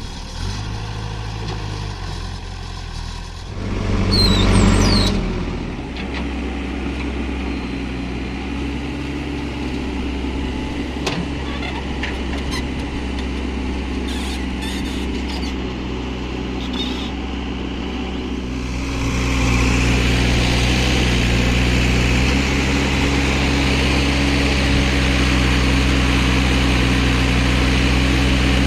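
Backhoe loader's diesel engine running steadily, with a brief loud hiss about four seconds in and a few light knocks; from about nineteen seconds the engine runs louder, as when working under load.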